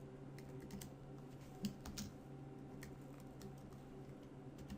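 Computer keyboard and mouse clicks: a dozen or so light, irregular clicks over a faint steady low hum.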